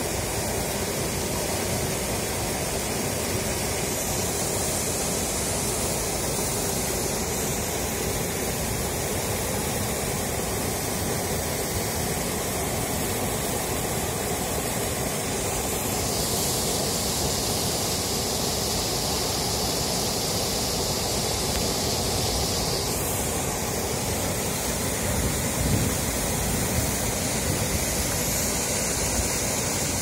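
Water pouring over a wide, low rock ledge into a foaming pool: a steady, unbroken rushing of falling water.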